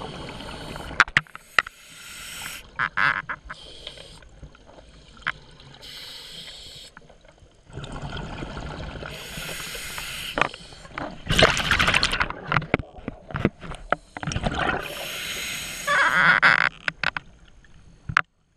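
Scuba diver breathing through a regulator underwater: repeated rushing bursts of exhaled bubbles, each a second or two long, with scattered sharp clicks and knocks between them.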